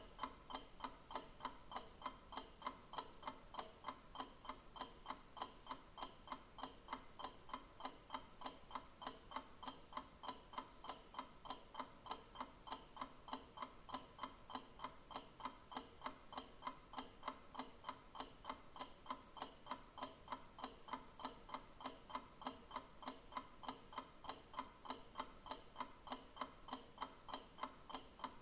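Clock ticking steadily and evenly, about three ticks a second.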